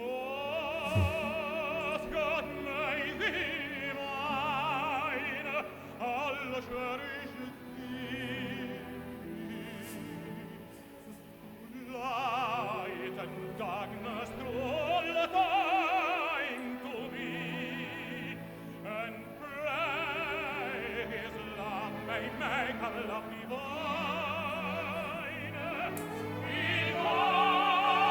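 Operatic tenor singing with wide vibrato over an orchestra, swelling louder near the end.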